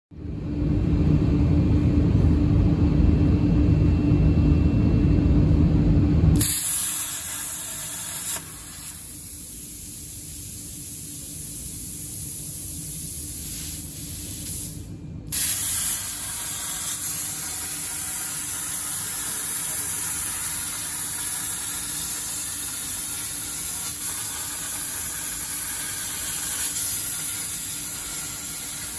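CNC plasma torch cutting 4 mm Corten steel sheet: a steady, high hiss of the arc and its gas jet, with a brief break about halfway. It opens with about six seconds of a loud, low rumble carrying a steady hum.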